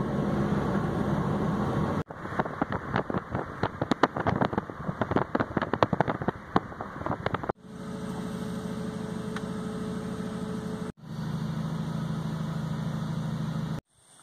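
Car engine and road noise, heard from inside a moving car. After a sudden cut comes several seconds of dense, irregular crackling and clicking, then a steady hum again, which cuts out near the end.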